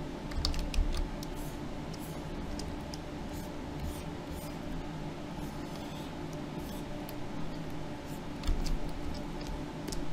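Scattered faint clicks and taps from working at a computer with its input device, over a steady low hum, with dull low thumps about half a second in and again near the end.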